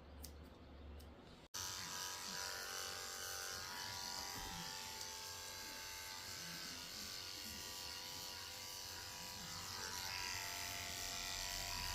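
Electric dog grooming clippers running steadily, starting about one and a half seconds in after a near-silent moment with a few faint clicks.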